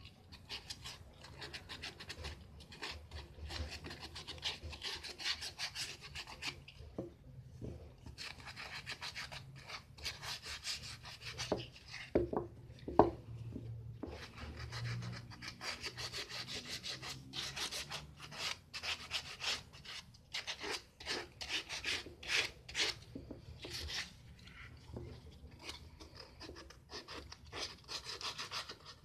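Sandpaper rubbing back and forth over a plywood sand-casting pattern in quick repeated strokes, sanding it smooth, with a couple of brief pauses. A few sharp knocks come about twelve to thirteen seconds in.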